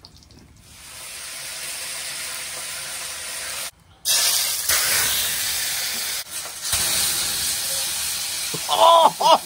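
Hot cooking oil sizzling in a pot over an open campfire, a loud, steady hiss that cuts out briefly about four seconds in and then resumes.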